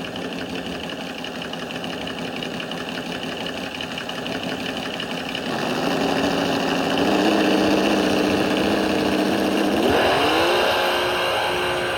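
An engine running at a steady pitch, getting louder about halfway through, then revving up about ten seconds in and holding at the higher speed.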